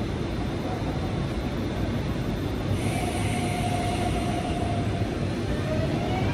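Miami-Dade Metrorail train (Hitachi-built car) standing at the platform with a steady hum from its equipment. Near the end its traction motors start a rising whine as the train begins to pull away.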